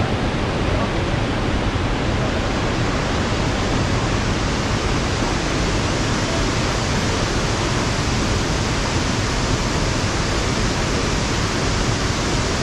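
Waterfall: a steady, loud, unbroken wash of falling water.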